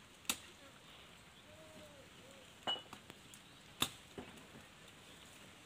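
A blade chopping into a slender palm trunk: four sharp, separate strikes, the first just after the start and the rest bunched a little past the middle.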